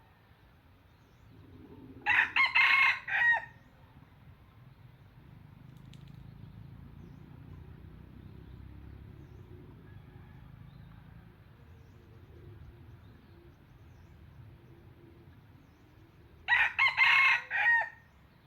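Red junglefowl cock crowing twice, about fourteen seconds apart; each crow is a short, clipped call of a second or so.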